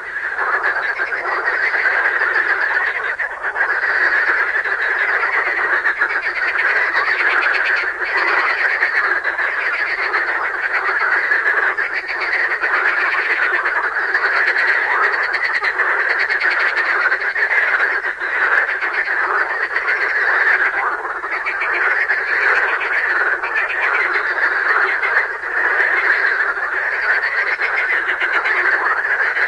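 Marsh frogs (grenouille rieuse, Pelophylax ridibundus) calling in a loud, continuous chorus, their laughing call cascades overlapping without a break.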